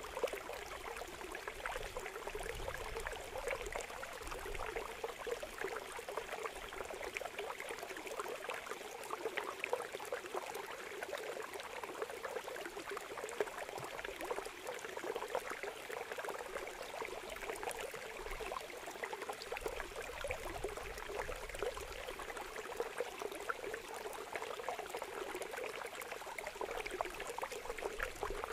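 Shallow water pouring in a steady stream into a woven bamboo basket trap, rushing and splashing constantly with many small crackling splashes.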